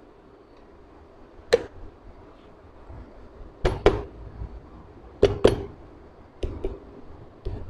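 Aluminium crankcase halves of a Honda CG125 engine being knocked and pressed together as one half is seated on the other: about seven sharp knocks with a short ring, several coming in pairs.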